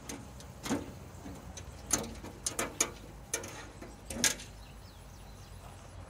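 Irregular clicks and knocks, about seven in four seconds, the loudest around two and four seconds in, from hands working the sheet-metal blade-wheel cover of a Huike HKS31G band sawmill.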